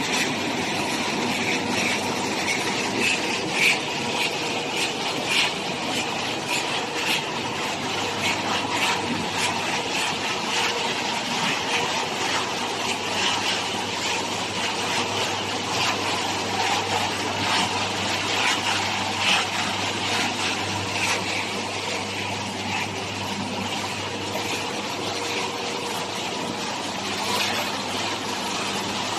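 Pet food production line machinery running steadily: a constant motor hum with frequent light clicks and rattles throughout.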